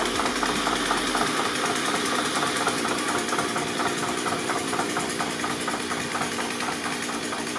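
An engine idling steadily, with a fine even pulse.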